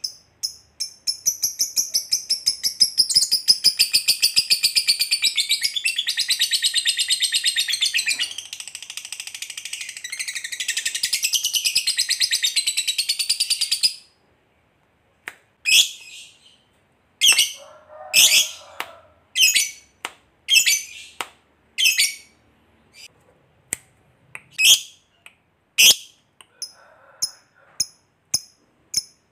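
Fischer's lovebird giving a long 'ngekek' chatter: a rapid, high trill that runs unbroken for about fourteen seconds and then cuts off suddenly. After a short pause it gives a string of single sharp chirps spaced roughly half a second to a second apart.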